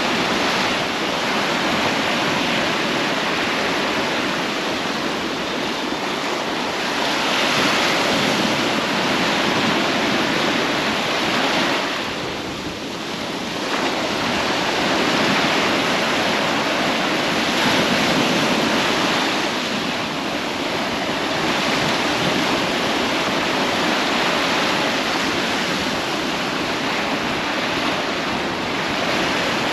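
Sea surf washing onto a beach: a steady rush that swells and eases every few seconds, dipping briefly about twelve seconds in.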